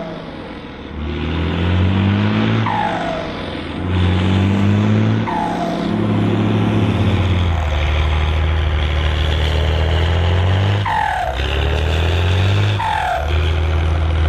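Turbocharged diesel engine of a Volvo BM 810 Turbo tractor working under load, its pitch climbing and then dropping several times, with a short falling turbo whistle at each drop, in between running steady and hard.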